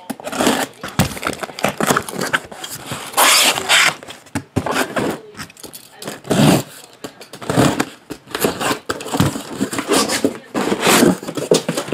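Cardboard shipping case being handled and opened: cardboard scraping, rubbing and tearing in irregular bursts.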